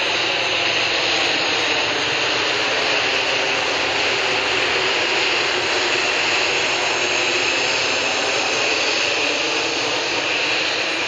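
Boeing 737 airliner's twin jet engines passing low overhead: a loud, steady jet roar with no breaks.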